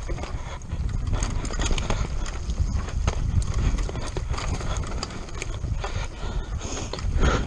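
Mountain bike descending a dirt forest trail at speed: tyres rumbling over roots and ruts, with the chain and frame rattling in many irregular clicks and knocks, a heavier knock near the end.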